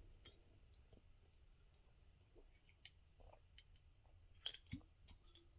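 Faint clicks and handling sounds of a person taking a drink of soda, with one sharper, louder click about four and a half seconds in.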